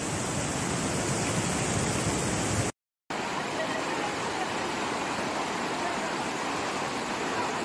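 Muddy floodwater torrent rushing, a steady noise of fast-flowing water. It drops out for a moment about three seconds in, then resumes as floodwater pours across a road.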